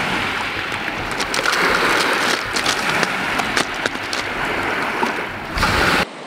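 Steady rush of lake waves washing over a cobble beach, with a few sharp clicks of stones in the middle; it cuts off suddenly near the end.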